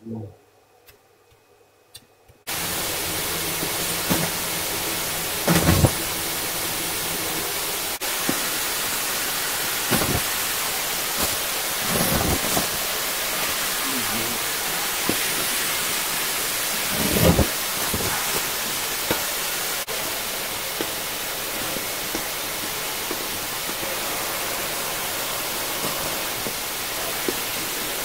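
Miele canister vacuum cleaner switched on about two and a half seconds in, then running with a steady rushing noise. A few brief louder surges come as latex gloves, paper scraps and dust clumps are sucked into the nozzle.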